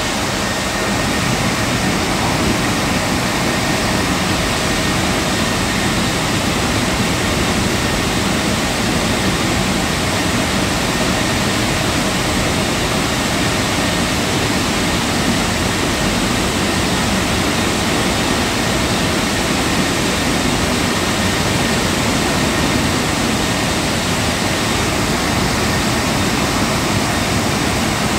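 Tammermatic T700 Lux touchless car wash gantry working over a car: a steady, loud rushing hiss from its jets.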